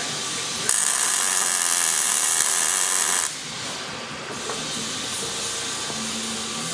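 MIG welder laying a tack weld on a truss being fitted to a steel front axle: a loud, even hiss that starts suddenly just under a second in and cuts off about two and a half seconds later. A fainter steady noise runs underneath.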